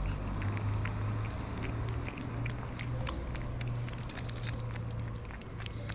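Cats eating chunks of wet cat food from metal saucers: quick, irregular wet clicks and smacks of chewing and lapping, with a steady low hum underneath.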